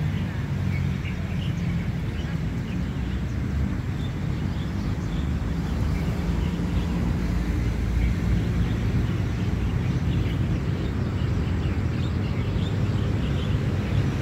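Outdoor park ambience: a steady low rumble with scattered short bird chirps over it.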